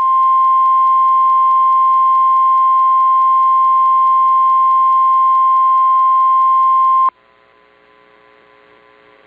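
Emergency alert tone: a single steady tone near 1050 Hz, the NOAA Weather Radio warning alarm, sounding loud for about seven seconds and cutting off sharply. A faint hum from the receiver follows.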